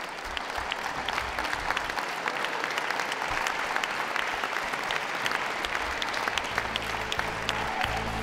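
Audience applauding, a dense steady clapping, with background music coming in near the end.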